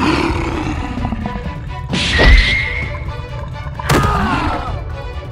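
Cartoon fight hit sound effects: two heavy whacks, about two seconds in and again about four seconds in, over background music.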